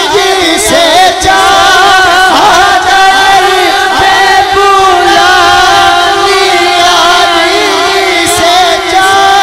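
A man singing a naat, an Urdu devotional song in praise of the Prophet, into a microphone. He holds long notes with wavering, ornamented turns of pitch.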